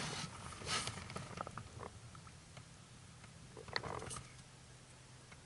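Faint handling noises in a fishing boat: scattered small clicks and rustles, with a sharper click about four seconds in, over a faint steady low hum.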